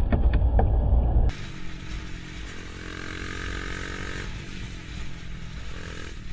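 Loud road and engine noise from a car dashcam, cut off about a second in, then a quieter motorcycle engine running at a steady speed while riding.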